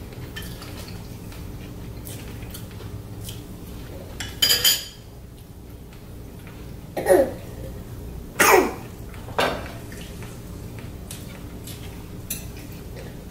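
Cutlery and dishes clinking and scraping at a meal, with a few short, sharp sounds about four and a half, seven, eight and a half and nine and a half seconds in.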